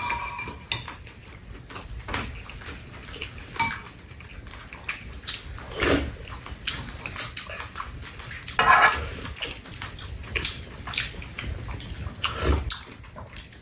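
Eating sounds of two people sharing chicken fried rice: metal spoons clinking now and then against bowls and a steel tray, with chewing and mouth noises in between.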